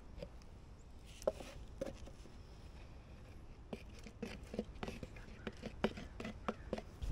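Thick, gritty truck bed liner pouring slowly from a can into a plastic paint roller tray: faint, irregular wet plops and ticks that come more often in the second half.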